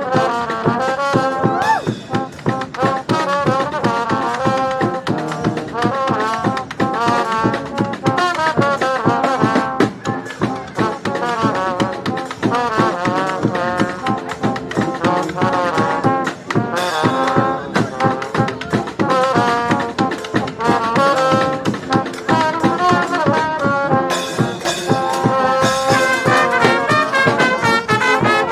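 Balkan brass band playing live, several horns carrying a tune together over a steady beat.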